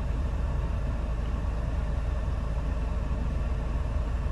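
Mahindra Thar's 2.2-litre four-cylinder turbo-diesel idling at a standstill, a steady low rumble heard from inside the cabin.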